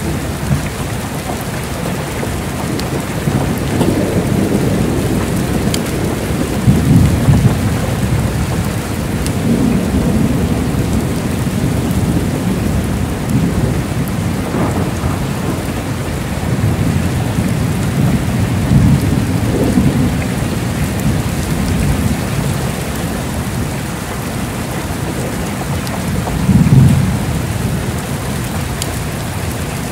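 Heavy rain falling steadily, with several low rumbles of thunder rolling through it, the loudest near the end.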